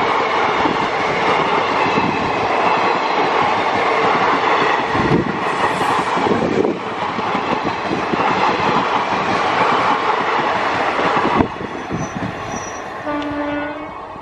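Passenger coaches of an electric-hauled Indian Railways train passing close at about 57 km/h: a steady rumble with the clatter of wheels over rail joints, which drops off sharply about eleven seconds in as the last coach goes by. A short horn note sounds near the end.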